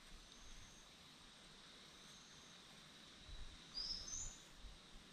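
Quiet creekside bush ambience: a faint steady high insect drone, with a bird giving two quick rising chirps about four seconds in and a few soft low bumps around then.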